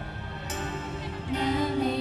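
Live pop music from an idol group's stage show, a sustained chord with a sharp hit about half a second in, and female voices singing held notes from a little past halfway.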